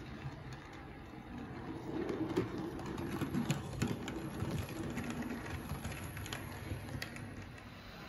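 Model Class 66 diesel locomotive running along the track past the camera: a motor hum with its wheels clicking over rail joints and pointwork. The sound is loudest a few seconds in as it passes, then eases.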